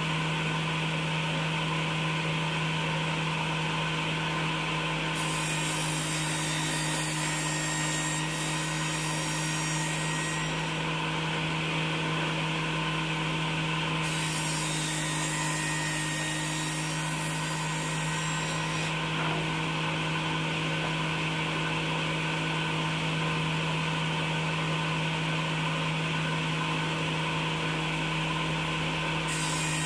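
Table circular saw running with a steady hum while linden wood is fed through the blade. Two cuts add a hissing rasp of about five seconds each, one starting about five seconds in and one in the middle, and a third cut starts near the end.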